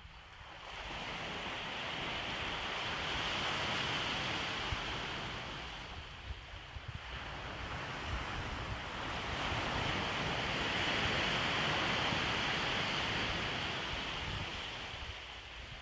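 Waves washing onto the beach: two long swells of rushing surf, the first building about a second in and easing around six seconds, the second building again and fading near the end.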